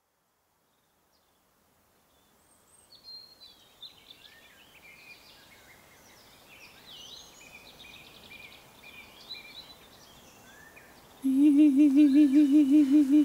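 Forest ambience with several birds singing and chirping, fading in about two seconds in. Near the end a loud, pulsing hum with a wavering pitch cuts in, about five pulses a second.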